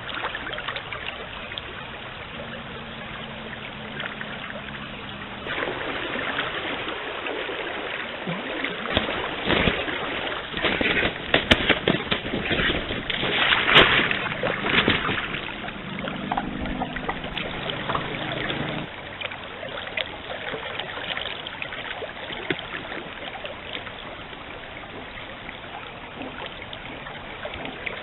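Stream water running steadily. Partway through it turns louder with a spell of splashing and sloshing, then settles back to the steady flow.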